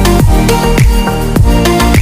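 Loud electronic dance music with a heavy, fast bass beat and repeated falling synth glides.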